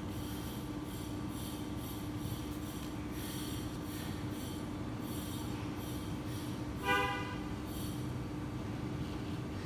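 Steady background hum and hiss, broken about seven seconds in by one short horn-like honk.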